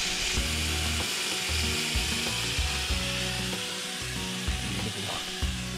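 Venison steaks frying in a pan on a camp gas stove, with a steady sizzle that fades out near the end.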